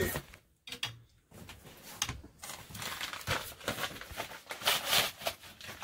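Hands handling a plastic action figure and packaging close to the microphone: after a short lull, a run of small clicks, taps and crinkles starts about a second in.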